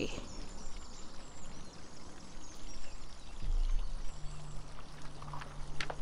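Backyard water fountain splashing steadily, with faint bird chirps. About three and a half seconds in, a low steady hum joins it.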